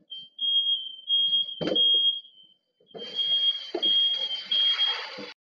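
Smoke alarm sounding: a high, piercing tone repeating in quick beeps, set off by a pan fire. A heavy thud comes about 1.7 seconds in, and from about 3 seconds a rushing hiss runs under the beeping until it cuts off just before the end.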